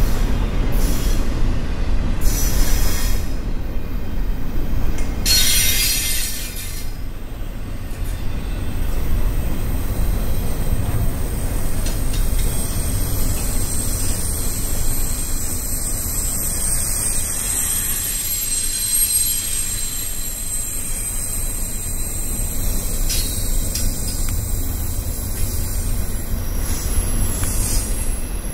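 Double-stack container well cars of a freight train rolling past, with a steady low rumble of wheels on rail. A few short high screeches come in the first few seconds, and a thin, high wheel squeal grows stronger in the second half.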